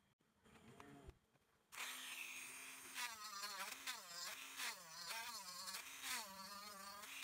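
Small handheld electric rotary tool starting up about two seconds in and running with a high buzzing whine. Its pitch dips and recovers again and again as the bit cuts tread grooves into the rim of a wooden wheel.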